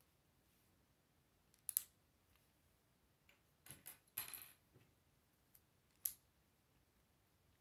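Plastic Lego bricks clicking as they are handled and pressed together: a sharp double click about two seconds in, a cluster of clicks with a short rustle around four seconds, and one more click near six seconds, over near silence.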